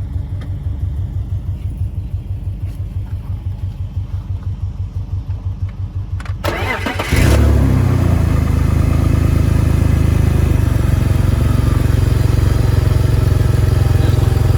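BMW E46's M54 inline-six engine cranking on the starter with a rapid, even chugging for about seven seconds, then catching and running steadily and louder. The owner says the head on this car is blown.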